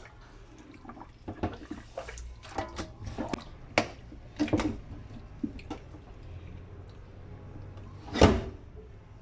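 Raw deboned, marinated chicken being handled and turned right side out in a steel pot: irregular soft wet sounds and small knocks, with one louder thud about eight seconds in.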